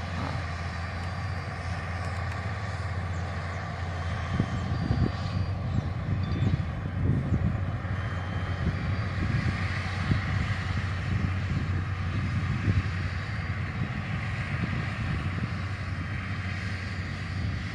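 Tractor engine running steadily, heard from a distance as it pulls a rotary tiller across the field, with uneven low rumbling gusts over the drone.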